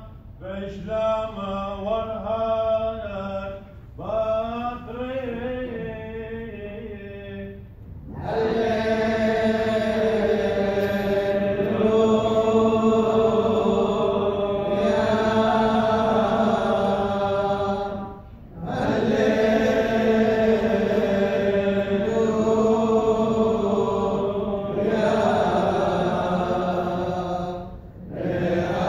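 Syriac liturgical chant of the Church of the East. A single voice chants alone for the first several seconds, then many voices chant together more loudly, pausing briefly twice.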